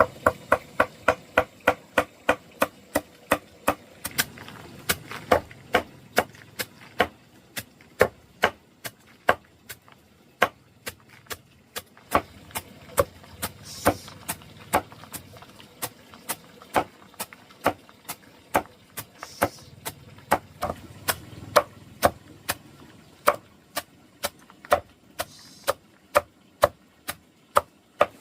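A blade chopping steadily, with sharp evenly spaced strokes about three a second and a few brief pauses.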